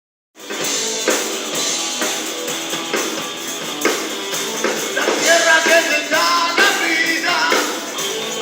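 Blues-rock band playing live, with a steady beat; about five seconds in a wavering lead line, voice or guitar, comes in over it.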